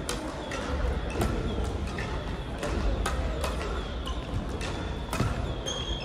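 Crossminton rackets striking the speeder in a sports hall: a string of sharp pops roughly every half second to a second, with echo from the hall, and a brief high squeak near the end.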